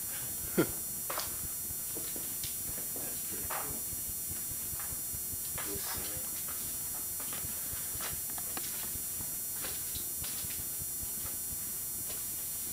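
Footsteps with scattered small knocks and clicks, irregularly spaced, with one sharper knock about half a second in, over a steady background hiss.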